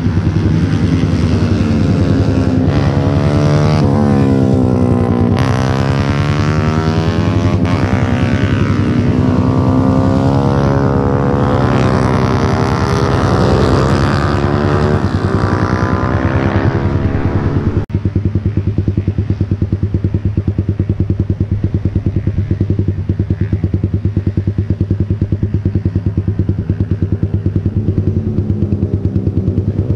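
A motorcycle engine idles close by with a steady, rapid beat. For the first half, other motorcycles ride past on the track, their engine notes rising and falling in pitch as they go by.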